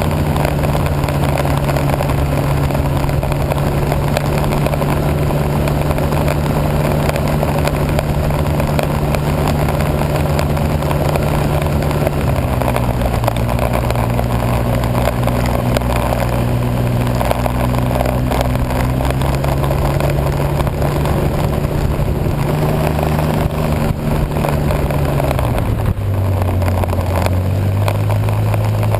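Snowmobile engine running steadily under way. Its pitch steps down about twelve seconds in and again near the end, with a rushing noise over it.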